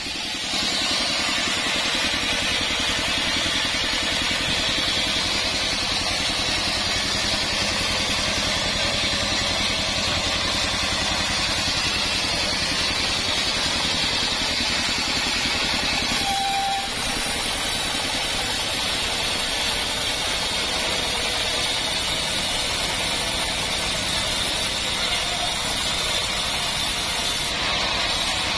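Engine-driven band sawmill running steadily, its motor and blade going at an even, unchanging pace.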